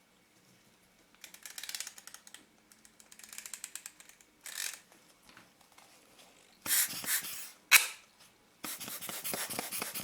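Small metal lens parts being handled and turned, giving runs of fast fine clicking, followed by louder bursts of scraping and hissing noise.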